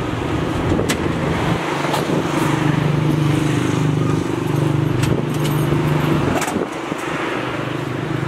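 A vehicle engine running steadily close by, with a few sharp clicks and rattles over it.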